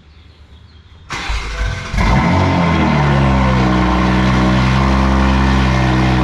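2020 Toyota Supra cold start through a Boost Logic titanium non-valved cat-back exhaust. The starter cranks for about a second, then the engine catches about two seconds in and settles into a loud, steady idle.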